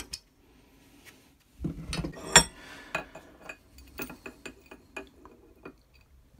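Steel clanks and rattles as a spanner works the rusted, seized collar of a 1950s ER Varney A956 Yankee-style ratchet screwdriver held in a vise, loudest about two and a half seconds in. A run of light metallic clicks follows as the small inner parts are worked out of the barrel by hand.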